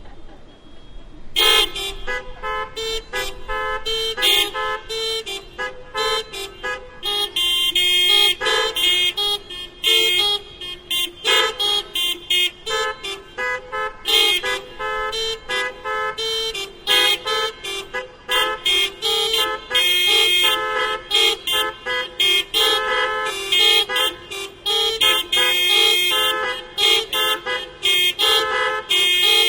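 Many car horns of different pitches honking in short, rapid interlocking bursts, a rhythmic hocket of hoots and honks, starting about a second and a half in and continuing densely.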